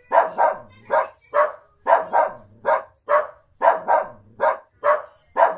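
A dog barking over and over, short sharp barks about two a second, some coming in quick pairs.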